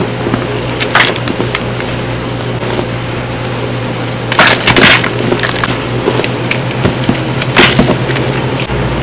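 A hand squeezing and crumbling chunks of dried, reformed cornstarch into loose powder, making a steady squeaky crunching. Sharper crunches come about a second in, twice around four and a half seconds in, and again near the end as bigger pieces break.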